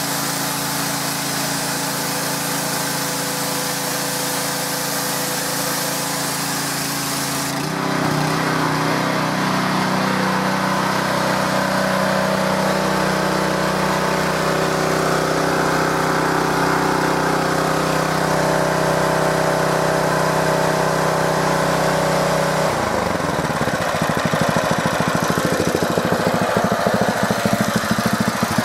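Powerhorse gas pressure washer's 212 cc overhead-valve engine running, at first with the high-pressure spray hissing from the wand nozzle. About eight seconds in the spray stops and the engine runs steady. Near the end its pitch glides down and it settles into a lower, pulsing idle.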